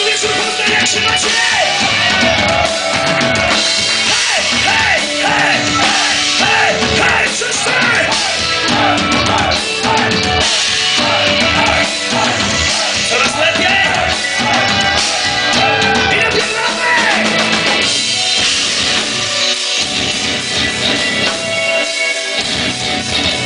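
Heavy metal band playing live: drum kit and electric guitars, loud throughout, with a wavering, bending lead melody on top for most of it.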